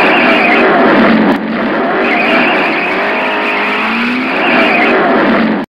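Motorcycle engine sound effect, running loud and revving, with its pitch gliding up and down; it dips briefly about a second and a half in.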